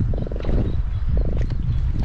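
Atlantic croaker croaking after being caught: three short croaks, each a quick rattle of pulses, over a steady low rumble.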